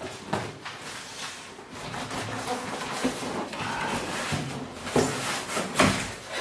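Cardboard packaging being handled and opened: irregular scraping, rustling and knocks, with the loudest knock near the end.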